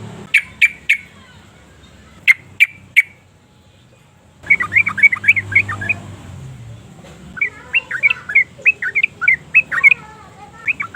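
Yellow-vented bulbul calling: three short sharp notes, three more about two seconds in, then from about four and a half seconds bursts of rapid, bubbly chattering song.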